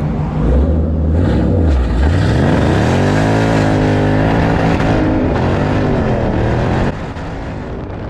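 Ford Shelby GT500's supercharged V8, fitted with a VMP Gen 3R supercharger, revving under throttle: the engine note dips and then climbs steeply in pitch about two seconds in, holds high with a slight waver, and drops quieter shortly before the end.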